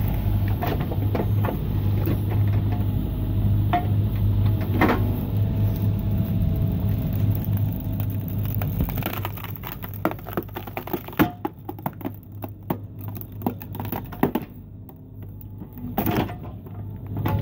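Hydraulic screw-cone log splitter on a mini excavator boring into a log over the excavator's steady engine hum. About halfway through the hum drops and the wood gives a quick run of cracks and snaps as the log splits open along its length.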